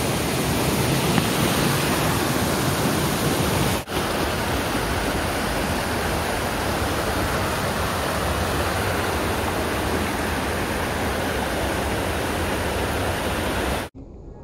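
Creek water rushing over rocks in small cascades, a steady close rush. It breaks off for an instant about four seconds in and cuts off suddenly near the end.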